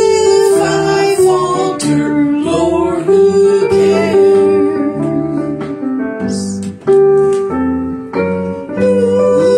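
A woman singing a slow hymn into a microphone with piano accompaniment, holding long notes with a slight waver.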